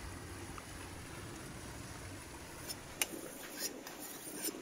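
Steady outdoor background rush, then, about three seconds in, a wide cleaver-style kitchen knife being sharpened on a whetstone: a sharp scrape of steel on stone followed by two more scraping strokes.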